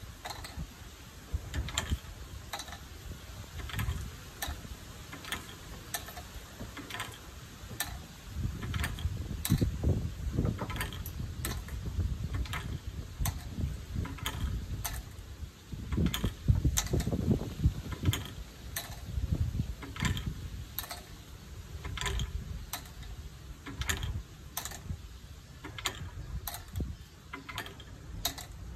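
Small sharp clicks repeating about once or twice a second, slightly unevenly, from the bamboo water-drop frog sculpture, over a low rumble that swells twice.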